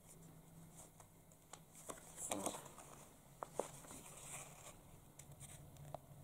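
Faint rustling and small scratching clicks of a paper sticker disc handled and picked at with fingers, with a slightly louder patch of rustling a little over two seconds in.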